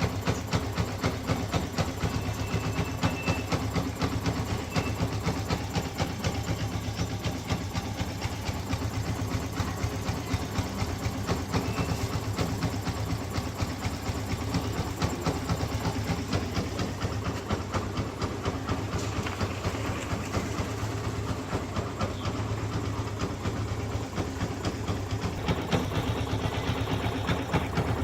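Yamaha FZ v2.0 motorcycle's single-cylinder engine idling steadily, a fast even chugging beat.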